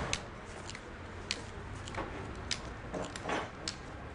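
A series of sharp clicks or taps, roughly one every half to two-thirds of a second, over a low steady hum, with a longer scraping rustle about three seconds in.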